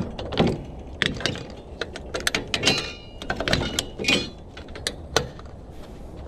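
A string trimmer being lifted into a metal trimmer rack and locked in place: a run of clanks, clicks and rattles of metal on metal, with a brief metallic ringing about three seconds in.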